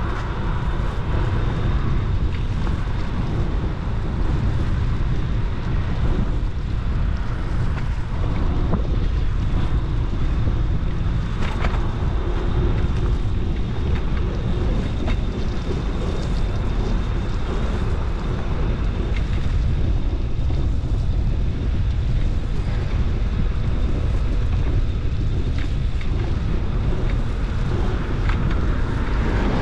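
Wind rushing over the microphone of a camera riding on a moving bicycle: a steady low rumble with a few faint clicks and rattles.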